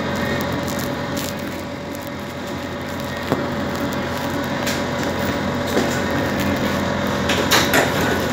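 Tram interior at a station stop: a steady electric hum with several held tones, one sharp click about three seconds in and a few light knocks near the end.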